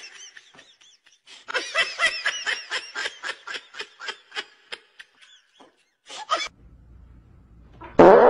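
A person laughing: a high-pitched run of giggles, about four a second, that thins out and trails off. A short loud sound comes near the end.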